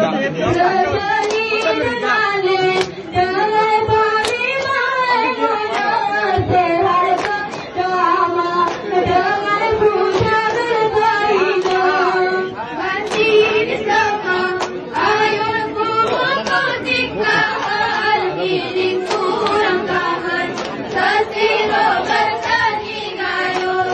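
A group of women singing a Gayo Bines dance song in unison, sustaining long notes. Sharp hand claps come in at intervals.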